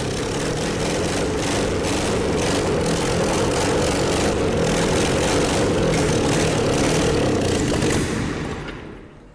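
Petrol engine with rubber piston rings running steadily on an open exhaust manifold. About eight seconds in it dies away as the ignition power is disconnected.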